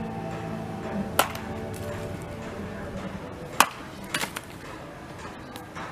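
Sharp whacks of a wooden stick being swung and struck: one about a second in, one past the middle, then two in quick succession. Soft background music with held notes runs underneath.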